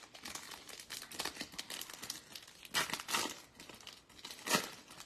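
Foil wrapper of a Topps Chrome baseball card pack crinkling in the hands and being torn open, with louder rips about three seconds in and again near the end.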